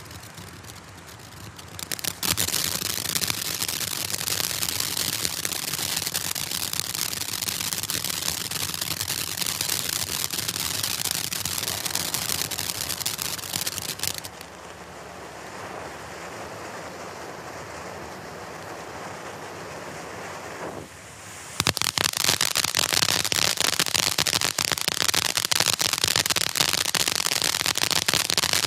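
Black Cat 'Tropical Thunder' firework cake firing, with dense rapid crackling starting about two seconds in. The crackling eases to a quieter stretch around the middle, then comes back louder for the last several seconds.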